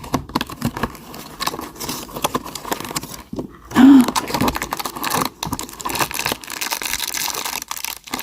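Plastic and cardboard packaging crinkling and tearing with many small crackles as a toy blind pack is opened by hand. About four seconds in there is one brief loud sound with a short rise and fall in pitch.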